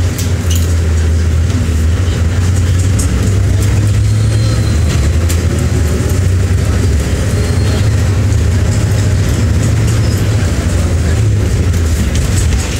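Engine drone and running noise of a King Long XMQ6126G 12-metre city bus, heard from inside the cabin as the bus drives: a loud, steady low hum, with scattered light ticks and rattles mostly in the first few seconds.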